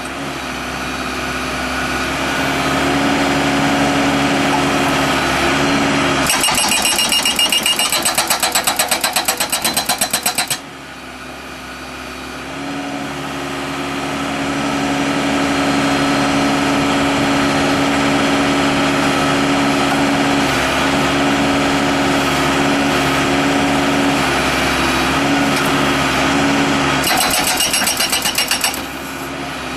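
Case 590 Super L backhoe's diesel engine running at raised throttle, with an Allied 740 hydraulic hammer pounding concrete in two bursts of rapid blows, about five a second: one lasting about four seconds, starting about six seconds in, and a short one near the end.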